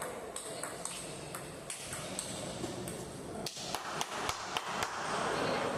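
Table tennis balls clicking sharply off paddles and tables, a string of quick hits in the second half, over the steady background noise of a large hall.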